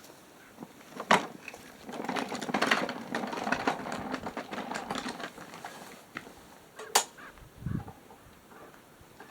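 Clicks, knocks and rattling of things being handled: a sharp click about a second in, a stretch of clatter, another sharp click about seven seconds in, and a low thump just after it.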